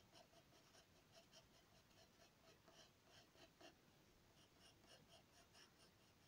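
Faint pencil scratching on drawing paper: a quick run of short strokes, about three a second, as fur marks are sketched.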